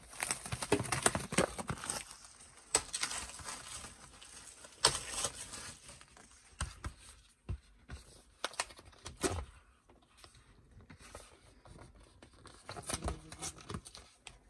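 A knife slitting the tape on a cardboard blind box, then the packaging being torn and opened by hand. The result is a run of irregular scraping, tearing and crinkling with scattered sharp clicks and knocks, busiest in the first two seconds.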